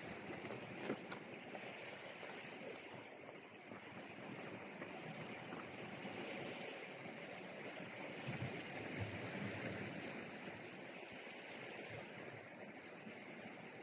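Sea surf washing steadily against the shore, with a couple of faint ticks about a second in.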